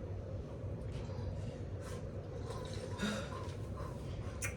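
Quiet room tone with a steady low hum and a few faint short sounds, one about two seconds in, one about three seconds in and a brief click near the end.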